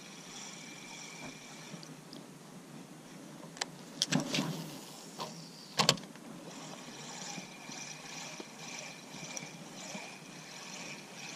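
A spinning reel being wound, a steady pulsing whir. The winding stops for a few seconds, with a few sharp clicks and knocks about four to six seconds in that are the loudest sounds, then resumes.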